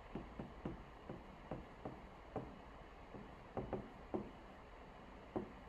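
Faint, irregular light clicks and taps of a stylus on its writing surface, about a dozen in quick uneven succession, as a string of digits is handwritten.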